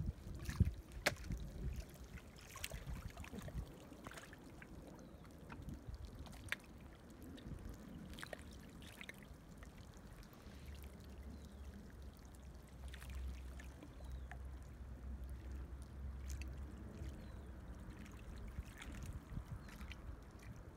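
Small waves lapping and splashing against a shallow, reedy lake shore in irregular little splashes, with a low steady rumble for several seconds in the middle.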